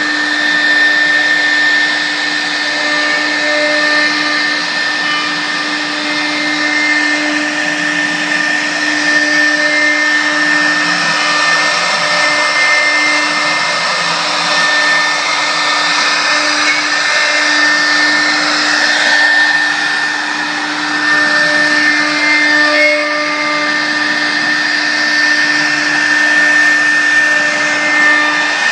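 Air-cooled spindle of a 4-axis CNC router running with a steady high whine as its cutter carves a wooden log turned on the rotary axis, over a constant rasping hiss of wood being cut.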